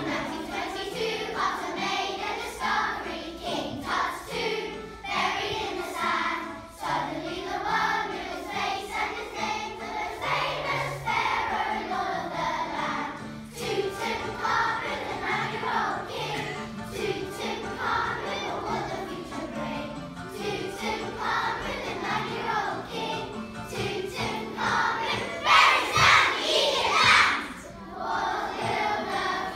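Choir of young schoolchildren singing a song together over a musical accompaniment, getting louder for a moment near the end.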